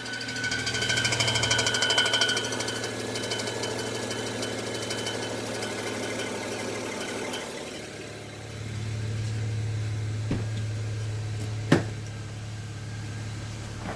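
BMW 335i's N54 twin-turbo straight-six idling with a fast metallic rattle from the transmission, the sign of a slightly bent flywheel. The rattle eases about halfway through, leaving a steady idle hum, and a sharp click sounds near the end.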